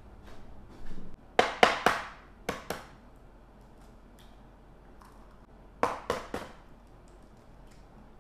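Eggs being tapped and cracked against the rim of a small stainless steel saucepan. There are two quick runs of sharp taps that ring briefly, about five taps and then three more a few seconds later.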